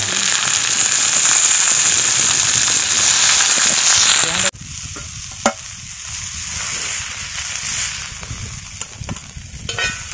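Fish frying in oil on a flat iron tawa, sizzling loudly. About four and a half seconds in, the sizzle drops suddenly to a quieter one, broken by a few clicks and scrapes of a metal slotted spoon on the pan.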